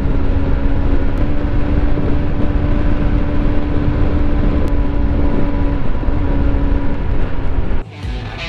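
Hero Xpulse 200's single-cylinder 200 cc engine running at steady revs at highway speed, under heavy wind rush on the microphone. It cuts off abruptly near the end.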